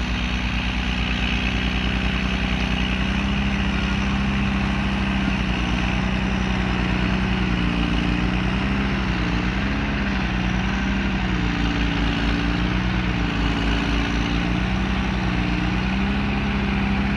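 JCB 3DX backhoe loader's diesel engine running with a steady drone. From about seven seconds in, a higher note above it rises and dips several times.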